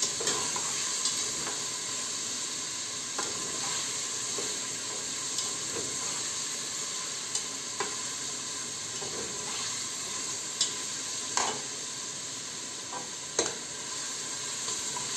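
Chicken cubes sizzling in hot oil in an aluminium pressure cooker, frying until lightly browned, with a slotted metal spatula stirring them and now and then clicking and scraping against the pot.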